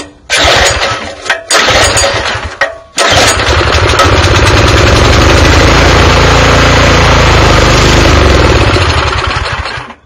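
Small overhead-valve single-cylinder tiller engine pulled twice on its recoil starter, catching about three seconds in and running steadily for about six seconds before dying away near the end. It is running only on gas poured into the carburetor, and the owner takes the stall for a carburetor that isn't feeding fuel and may need rebuilding.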